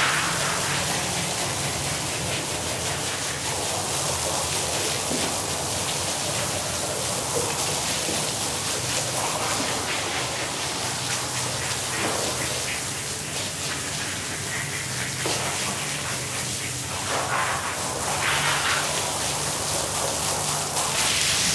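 Water spraying steadily onto a wet rug, with a low steady hum underneath.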